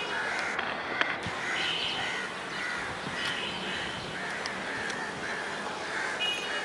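Birds calling in a steady run of short, harsh calls, about two a second, with a few brief higher calls from another bird in between.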